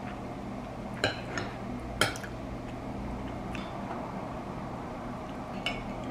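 Metal fork clinking against a ceramic bowl while eating, a handful of sharp clinks with the loudest about one and two seconds in, over a steady low room hum.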